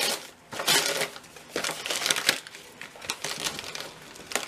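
Gift wrapping paper crinkling and tearing in several short, irregular bursts as a small wrapped box is pulled open. The wrapping is tight and hard to get into.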